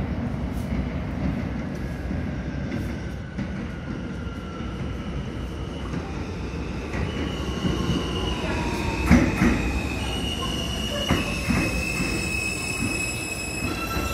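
An R160B subway train with Alstom propulsion pulls into the station: a steady rumble as it approaches, high wheel squeal and a whine that falls in pitch as it brakes, and a few heavy clunks over the rail about nine and eleven seconds in. Several high squealing tones build near the end as the cars run alongside.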